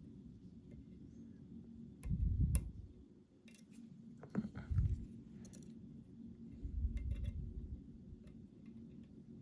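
Storm Crow Uzumaki lock being picked with a hook pick and tension wrench: scattered sharp metallic clicks of the pick working the pins, with a few dull low thumps as the lock is handled.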